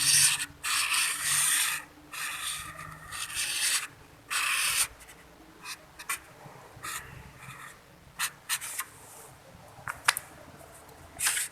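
Marker pen drawing on a plate: a series of short scratchy rubbing strokes over the first five seconds, then a few light clicks and taps.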